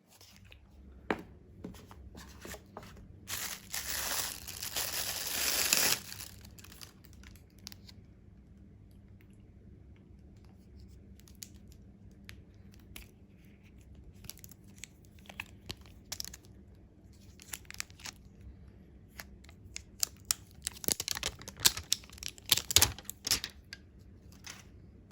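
Packaging being handled and torn open: one long tearing rip from about three and a half to six seconds in, then scattered rustles and clicks, and a burst of sharp crinkling near the end.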